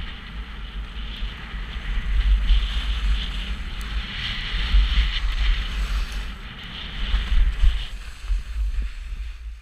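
Skis sliding and carving on packed snow, a rushing hiss that swells louder about three times, with heavy wind buffeting on the action camera's microphone from the downhill speed.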